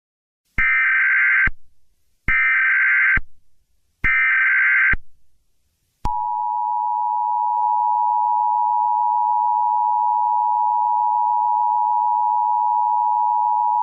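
Emergency Alert System tones: three short bursts of SAME header data, each about a second long and a second apart, then the steady two-tone attention signal starting about six seconds in. They announce a tornado emergency alert.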